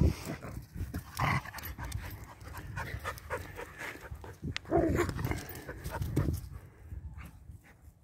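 A German shepherd and another dog playing: panting and short dog noises, irregular, the loudest about five seconds in.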